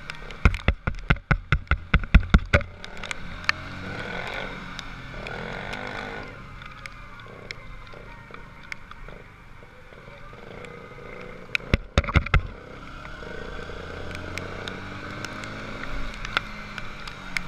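Sport motorcycle riding on a wet road, its engine and wind noise picked up by a helmet camera, the engine rising in pitch around four to six seconds in. A rapid run of loud thumps fills the first two seconds or so, and another short cluster comes about twelve seconds in.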